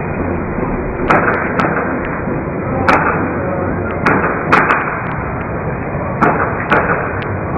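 A martial artist's footwork during a Xinyi Quan form: about nine sharp stamps and slaps at irregular intervals, some in quick pairs, over a steady loud hiss.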